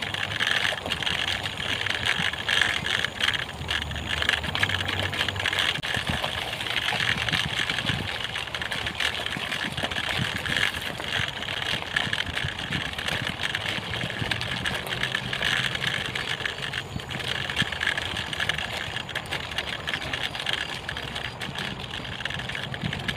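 Bicycle riding along a gravel trail: steady tyre noise with many small rattles and knocks as the bike and handheld camera jolt over the bumps.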